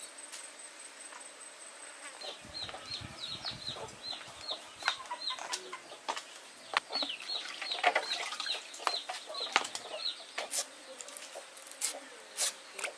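A bird chirping in two runs of quick, short, falling chirps, about three a second, with a low flutter under the first run and scattered clicks and knocks.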